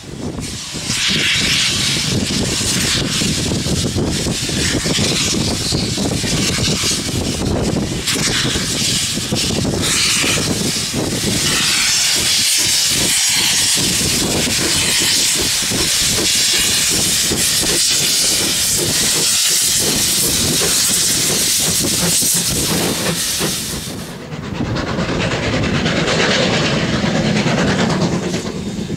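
NZR Ab class 4-6-2 steam locomotive working past under power, its exhaust beating under a loud steam hiss. About 24 seconds in the sound changes as the shot cuts: the hiss drops away and the locomotive's exhaust and running gear come through lower.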